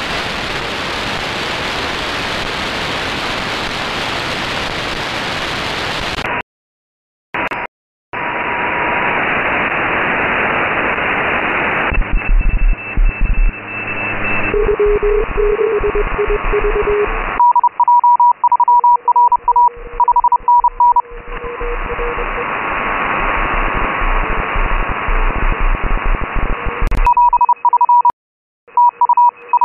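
Shortwave receiver audio from a software-defined radio: a steady hiss of band noise while tuning, cutting out briefly twice about six to eight seconds in. From about halfway, tuned in upper sideband on the 20-metre amateur band, Morse code signals come through as keyed beeping tones that switch rapidly on and off.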